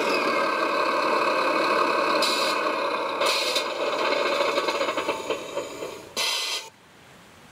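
Radio-controlled model Volvo A45G articulated dump truck running, a steady mechanical whine with rattling. Short hissing bursts come three times, and the sound fades and then cuts off abruptly about two-thirds of the way in, leaving a faint hiss.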